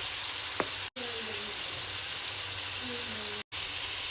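Onions and beef sizzling in a frying pan, a steady hiss, with a short click about half a second in. The sound cuts out for an instant twice.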